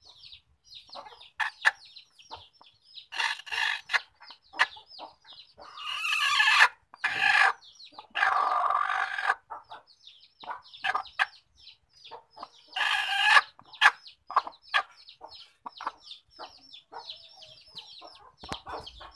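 Native village chickens calling in a coop: several loud, drawn-out calls about a second long, the loudest between about six and nine and a half seconds in. Quick high peeps run on without a break underneath.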